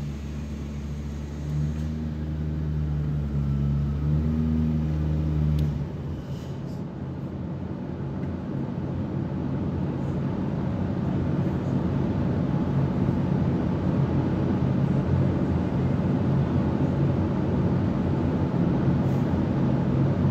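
Twin-turbo 5.2-litre V10 idling on the dyno right after a full-power pull, then shut off about six seconds in, leaving a steady noise in the dyno cell.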